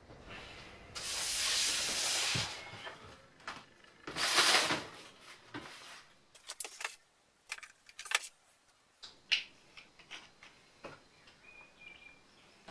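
Two long airy hisses, the second one louder, then a run of scattered light clicks and knocks as a paint roller and tray are handled.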